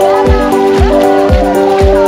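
Background music with a steady beat of about two kick-drum thumps a second under sustained synth-like chords and a wavering melody line.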